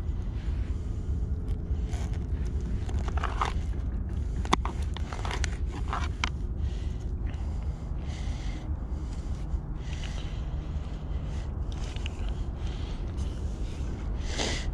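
Scraping and rustling from cut-shad bait and a fishing rig being handled, and from movement through dry leaves and grass, over a steady low rumble. A sharp click about four and a half seconds in.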